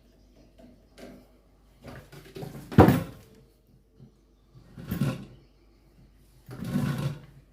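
Parts of a standing electric fan being handled and fitted together by hand: a series of knocks, clatters and scrapes, the loudest a sharp knock about three seconds in, with two longer scraping bursts later.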